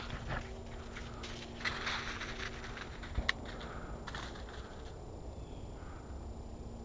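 Footsteps crunching through dry leaf litter and brush, with two sharp clicks a little after three seconds in; the steps stop about four seconds in.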